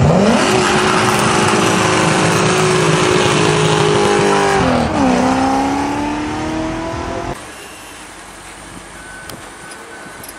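BMW E30 3 Series accelerating hard from a launch with rear-wheel spin: the engine revs up fast and holds high, shifts up about four and a half seconds in with the pitch dropping and then climbing again. It cuts off abruptly about seven seconds in, leaving much quieter low background noise.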